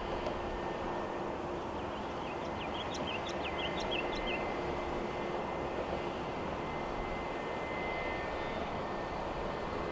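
Airbus A320 jet engines running at taxi power as the airliner rolls toward its departure: a steady rumble with a faint steady whine. A bird chirps several times between about two and four and a half seconds in.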